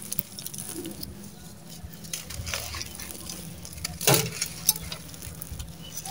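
Dry, gritty red sand-cement chunks being crushed and crumbled by hand, the grit crackling and trickling as it falls, with one louder crunch about four seconds in.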